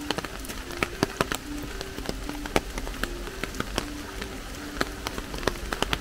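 Rain pattering: many irregular sharp drip taps over a steady hiss. A short low note recurs every second or so.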